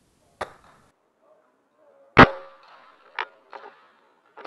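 Sharp clicks and knocks from a VSR-10 bolt-action spring airsoft sniper rifle being handled and aimed: a light click, one loud crack about two seconds in, then two lighter clicks.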